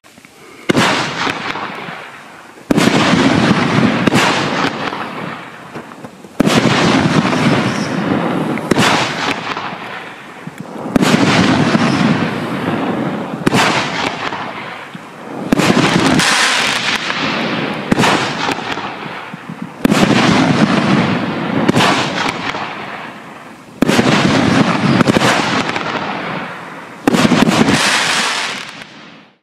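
A 500-gram consumer firework cake, Raccoon Fireworks' The Scrambler, firing its shots a few seconds apart. Each shot is a sudden loud launch followed by several seconds of dense crackling hiss from the silver scrambling effects, which fades before the next shot.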